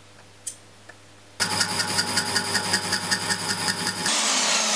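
A power tool starts about a second and a half in and runs with a fast pulsing whir. Near the end it gives way to a portable band saw grinding through a 4-inch cast iron bar with a steady hissing rasp.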